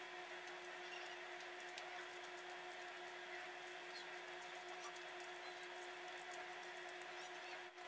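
Soft wet squishing and faint sticky clicks as hands press a grated, spice-coated mixture onto a raw fish steak, over a steady low hum.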